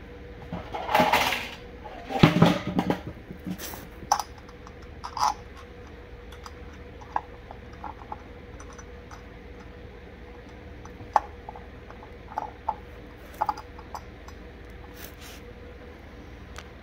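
A drive belt being worked by hand onto an OMB torque converter's driver pulley on a Baja DB30S minibike: a run of rubbing and scraping with clicks in the first few seconds, then scattered light metallic clicks and knocks of the pulley and belt being handled.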